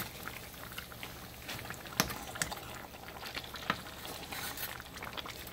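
Pot of thick egusi soup made with ground pumpkin seeds simmering, bubbling softly with scattered small pops and a couple of sharper ones.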